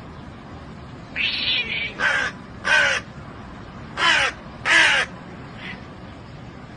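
Crow cawing: about five loud, harsh caws over some four seconds, each dropping in pitch, then a faint one near the end.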